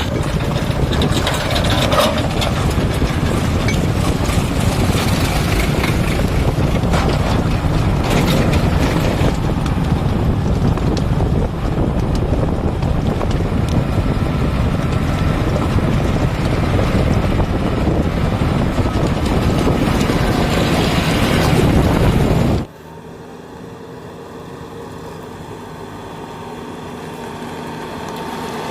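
Heavy diesel machinery running hard at a mud-loading job, a loud rough engine noise. About three-quarters of the way through it cuts off abruptly to a quieter, steady diesel engine hum that slowly grows louder.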